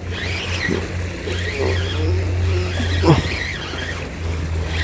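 A spinning reel being cranked as a hooked fish is played on a bent rod, over a steady low drone. High wavering squeals come and go, and there is a short sharp sound about three seconds in.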